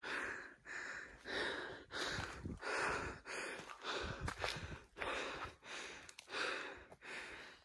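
A tired hiker breathing hard into the microphone while climbing, with quick, regular breaths about every two-thirds of a second: out of breath from the long uphill walk.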